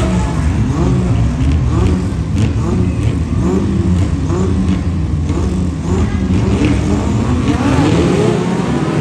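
Engine of a classic Showa-era Honda car revving hard over and over, its pitch climbing and dropping about twice a second. Near the end a second engine note glides across it.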